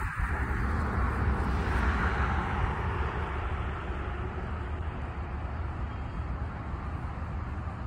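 A passing vehicle: a steady low rumble with a rushing noise that swells over the first couple of seconds and then slowly eases.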